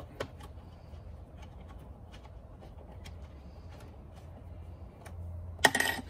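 Faint, irregular light clicks of an Allen key snugging the cup-holder panel's bolt back into the plastic golf-cart dash, over a low steady hum. A loud sharp clack comes near the end.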